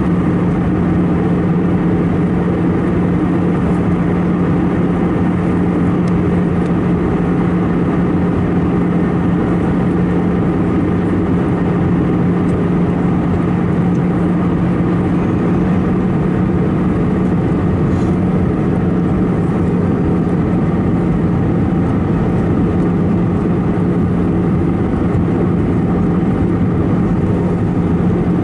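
Steady cabin noise of an Airbus A319-111 in descent: the constant drone of its CFM56 engines and rushing air, with a steady hum running under it.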